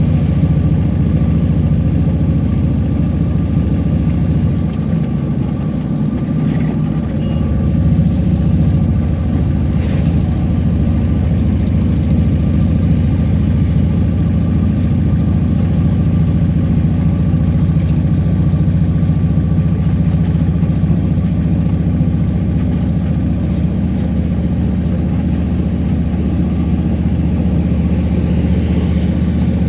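A car's engine running steadily while driving, a low even drone with a faint steady whine above it.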